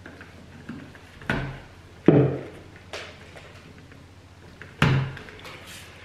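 Pliers and wires knocking and clicking in a light-switch back box while the neutral conductors are worked for a Wago connector: four sharp knocks, the loudest about two seconds in.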